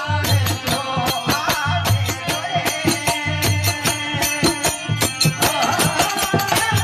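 Live Rajasthani folk bhajan music: a harmonium playing the melody over a deep drum beat and fast clicking, jingling hand percussion, with no singing.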